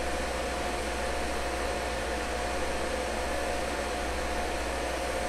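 TIG welding arc on brass, a steady hiss with a faint steady tone, as the arc heats the joint and the weld pool has not yet formed.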